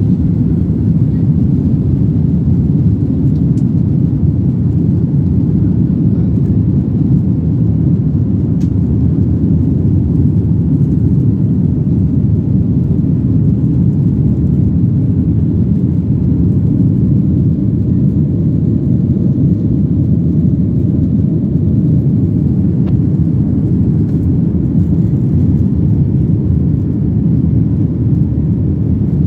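Jet airliner's engines at takeoff power, heard from inside the cabin: a loud, steady, deep roar with rushing air, through the end of the takeoff roll, liftoff and the initial climb.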